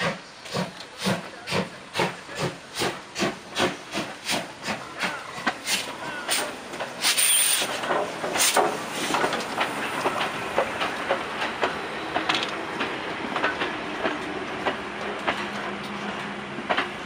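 DB class 50 two-cylinder steam locomotive moving off slowly: its exhaust chuffs in an even beat of about two to two and a half a second, then a loud burst of steam hiss about seven seconds in. After that the clank of the coupling rods and wheels and the clicking of the train rolling over the rails take over as the engine and tender pass close by.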